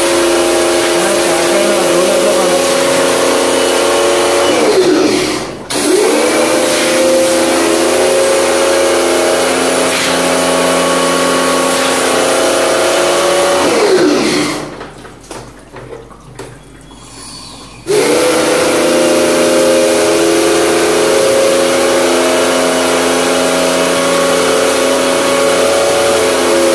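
Bosch electric pressure washer (jet service pump) running with a steady motor hum and water-jet hiss as it sprays an AC coil. The motor winds down when the trigger is released about five seconds in and restarts at once. It winds down again around fourteen seconds, stays off for about four seconds, then starts again, and winds down once more near the end.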